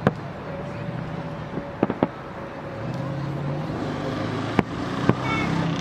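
Aerial fireworks shells bursting: a sharp bang right at the start, a quick cluster of bangs about two seconds in, and two more near the end, over a steady low hum.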